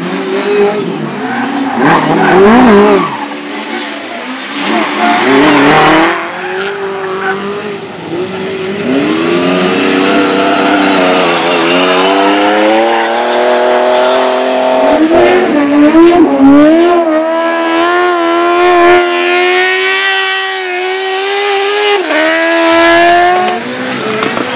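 Racing engines revving hard on a dirt track, their pitch climbing and dropping through repeated throttle changes, with a long high-revving run in the second half that drops off sharply a couple of seconds before the end.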